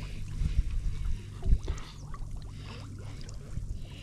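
Water sloshing and trickling as a person wades neck-deep in a weedy canal, over a steady low rumble, with a few low thumps in the water, the loudest about a second and a half in.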